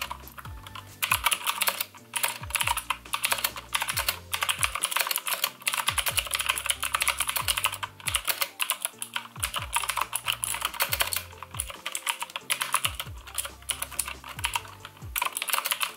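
Continuous fast typing on a Marvo KG901 tenkeyless mechanical keyboard with blue switches: a dense stream of sharp, mega-loud clicks, with brief pauses between bursts of keystrokes.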